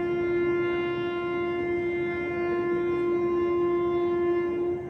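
Train horn sounding one long steady blast of nearly five seconds, cutting off sharply near the end.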